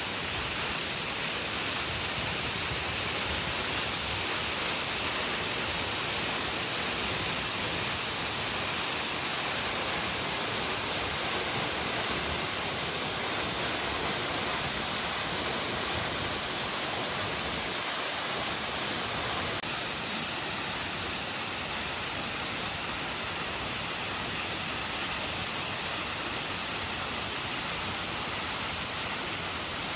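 Waterfall: a steady, even rush of falling water. Its tone shifts abruptly about two-thirds of the way through.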